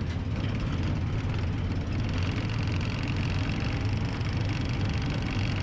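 A Cushman Turf Truckster's engine running steadily while the vehicle drives along, a low even rumble. It is running on a newly fitted vacuum-operated fuel pump.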